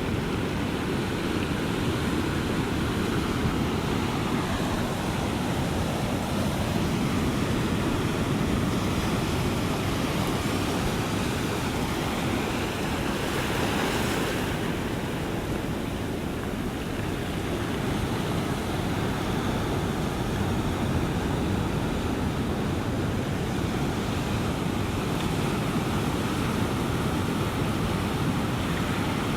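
Ocean surf: waves breaking and washing ashore in a steady rush, with one brighter, hissing surge about halfway through.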